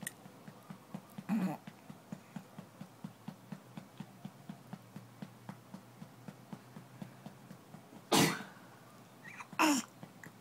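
An eight-week-old baby being burped: a hand pats the baby's back about three times a second. The baby gives a small grunt about a second in, a loud burp at about eight seconds as the patting stops, and a short whimper just after.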